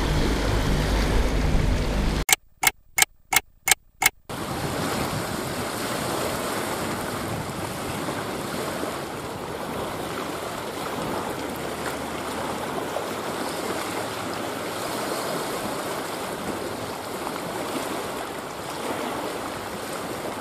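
Six quick, sharp beeps about two seconds in, typical of an electronic bite alarm signalling a fish taking line. Before them, wind buffets the microphone; after them, steady wind and waves wash against the rocky shore.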